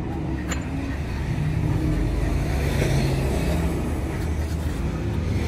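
Steady low rumble of an unseen running engine, with a single sharp click about half a second in.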